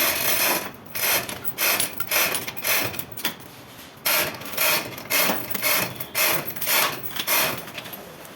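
Repeated rasping strokes of a hand tool working a surface, about two a second, with a short break near the middle.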